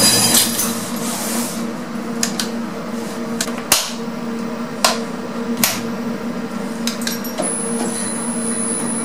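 Mitsubishi machine-room-less lift heard from the car roof under inspection control: a steady low hum, with sharp clicks and knocks every second or so.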